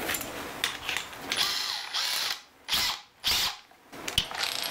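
Cordless hammer drills being set up for lag-screw driving: ratcheting keyless chucks clicking as they are gripped and tightened by hand, with a brief motor spin-up and wind-down about a second and a half in.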